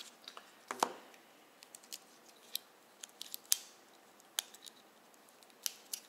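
Sharp, irregular clicks of a camouflage-handled multi-blade pocket knife being handled and its blades pried open, with light handling of a shrink-wrapped box. The loudest click falls around the middle.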